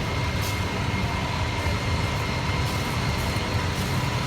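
Heavy diesel engine of a loaded Tata concrete mixer truck running steadily: a low, even rumble with a faint steady whine above it.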